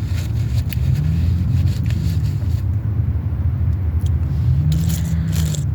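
Steady low rumble of a running motor vehicle, with scattered sharp clicks and crinkles of plastic packaging being handled.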